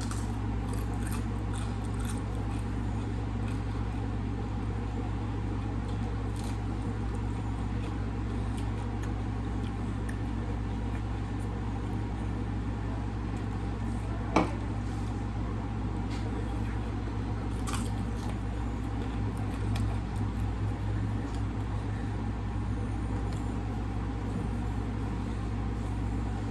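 A person chewing food, with soft eating noises and a few sharp clicks (the loudest about halfway through), over a steady low hum.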